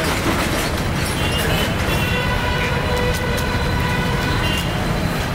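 Steady rumble of road traffic, with a vehicle horn held as one long steady tone for about two and a half seconds in the middle.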